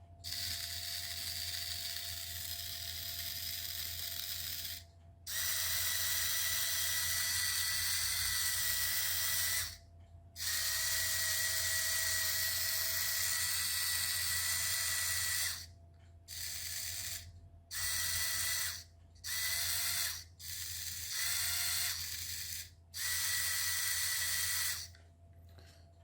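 Small electric drive motors of a toy line-follower car whirring through their gears, powered from a small LiPo battery, switched on and off repeatedly: a few runs of several seconds each, then shorter bursts from about two-thirds of the way in. The motors are mismatched, one running much faster than the other.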